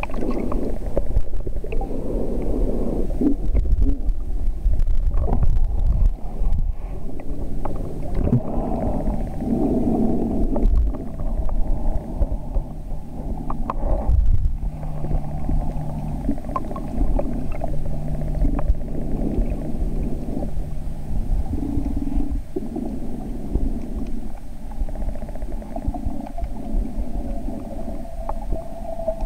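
Muffled, low rumbling and sloshing of water around a camera held underwater, swelling and fading unevenly. A steady low hum joins for several seconds about midway.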